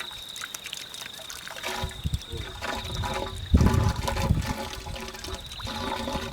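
Agnihotra ash being poured down a tube in several short pours, the loudest about three and a half seconds in.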